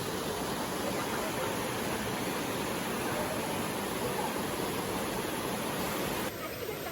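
Steady rushing of a mountain stream's water, cutting off abruptly near the end into a different, quieter background.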